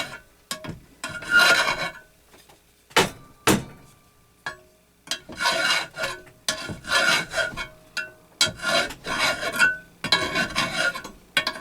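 Hand file, a second-cut file, rasping back and forth across metal in short strokes, about eight in a row in the second half, with two sharp clicks a few seconds in.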